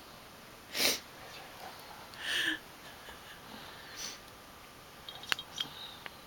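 Baby snoring in sleep: two loud, noisy breaths about a second and a half apart, the second with a pitched, whistly edge, then a softer breath. A few small sharp clicks near the end.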